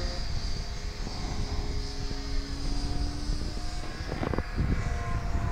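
Electric motors and propellers of F5J model gliders running as they climb just after launch, heard as several steady whining tones. Wind rumbles on the microphone, and there are a few short knocks about four seconds in.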